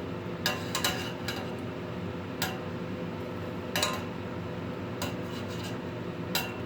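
Kitchen utensils clinking against pots and bowls, a handful of short sharp knocks spread out over a few seconds. A steady low hum runs underneath.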